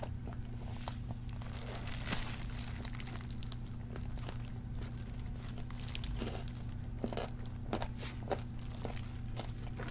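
Close-miked eating of a battered fried chicken drumstick: bites and chewing with irregular crunches and crackles of the crispy coating, along with the crinkle of a disposable plastic glove, over a steady low hum.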